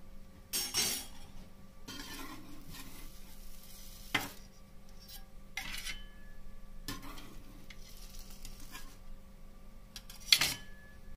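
Metal clinking and scraping against heart-shaped metal moulds on a flat griddle as the cooked pukis cakes are lifted off, a few sharp clinks with the loudest about ten seconds in, over a faint sizzle of batter cooking.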